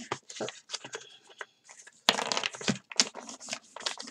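Brown paper grocery bag crinkling and rustling as it is pressed down hard with the fists to set the glue between two layers, in short irregular crackles that grow louder about halfway through.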